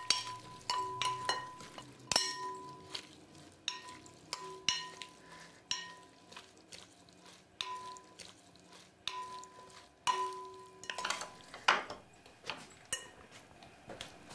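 Wooden spoons tossing farfalle pasta salad in a glass bowl: irregular knocks and clinks against the glass, with the bowl ringing briefly after many of them.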